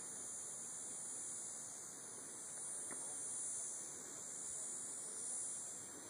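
Insects buzzing in a high-pitched, steady chorus that swells and fades every second or two, with a faint click about three seconds in.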